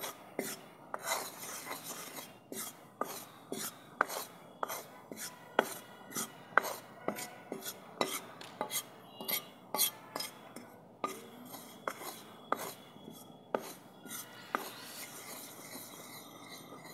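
Metal ladle scraping and stirring dry rice flour around a black kadhai as the flour is dry-roasted without ghee. Each stroke gives a gritty scrape with a light metal clink, about one to two strokes a second, thinning out and getting quieter near the end.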